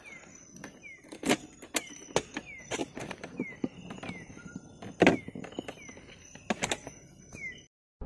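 Night-forest ambience, with a short falling call repeating about twice a second and a steady high insect whine, broken by a series of sharp clicks and knocks from the equipment being handled. The sound cuts off abruptly near the end.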